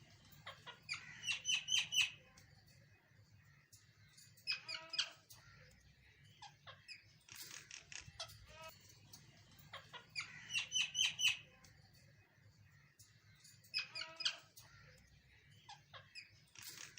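Birds calling in bursts of quick, high chirps every few seconds, the loudest bursts about a second in and again near ten seconds.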